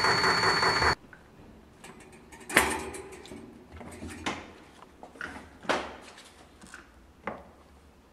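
A loud steady mechanical noise with a thin high whine cuts off abruptly about a second in. Then come scattered knocks and clunks from the metal drum and wire basket of a honey extractor being handled, the loudest about two and a half seconds in.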